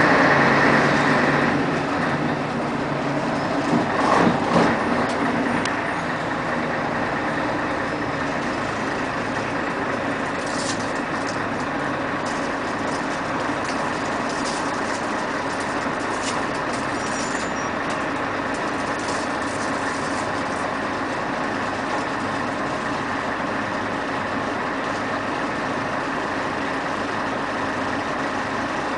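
Scania CN113CLL city bus heard from inside the passenger cabin: its six-cylinder diesel and Voith automatic drivetrain running steadily at low speed. It is louder at the start, has a brief louder burst about four seconds in, and then settles into an even drone.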